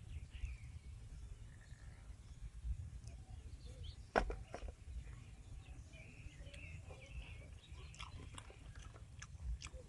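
Quiet outdoor ambience with a steady low wind rumble, a single sharp click about four seconds in, and light clicks near the end as crispy deep-fried pig intestine pieces are picked from a metal tray.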